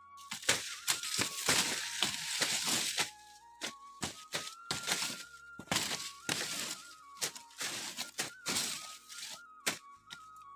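A sickle hacking at leafy tree branches: a run of sharp, irregular chops and cracks, several a second, with leaves rustling. A simple background melody plays underneath.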